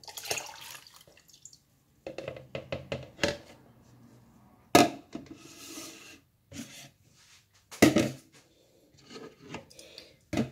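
Juice pouring briefly from a plastic measuring cup into a plastic pitcher, then plastic measuring cups and the pitcher knocking and clattering on a kitchen countertop, with two sharper knocks about five and eight seconds in.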